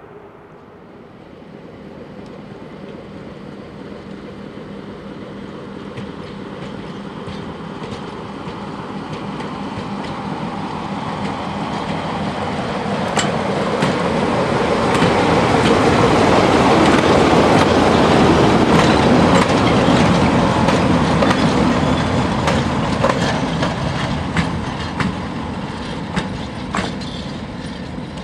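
Two diesel locomotives running coupled together, coming closer and passing by: the engine sound swells to a peak about two-thirds of the way through, then fades. Wheels click over the rail joints as they go by.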